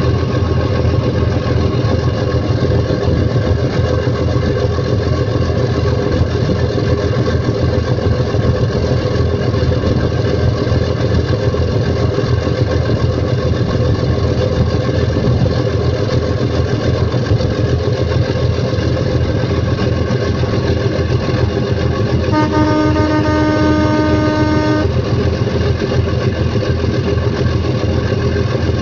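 Steady low drone of a boat's engine heard from on board. A single horn blast, about two seconds long, sounds near the end.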